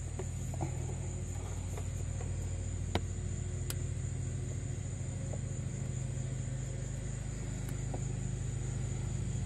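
Steady low hum with a faint, constant high whine above it, and a couple of faint light clicks a few seconds in.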